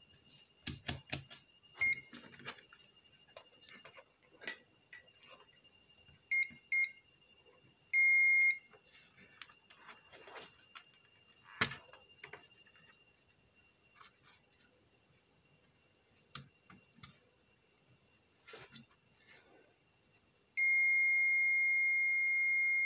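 Digital multimeter's continuity buzzer beeping as the probes touch points on a car stereo's circuit board. It gives a few short beeps, one of about half a second around eight seconds in, and a long steady beep near the end while the meter reads close to zero, the sign of a connected path. Scattered clicks and taps of the probes and handling come between the beeps.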